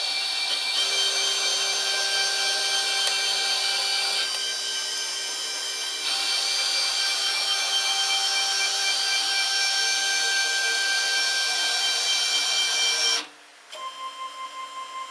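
Stepper motors of a 3040 CNC router driving its axes in an unloaded test run: a steady whine of several tones that changes pitch as the moves change, with no rattling. About 13 s in it cuts off suddenly, then a quieter pulsing tone follows.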